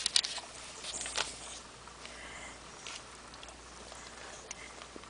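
A sleeping dog snoring: noisy, crackling breaths through the nose, loudest in the first second and a half and fainter after.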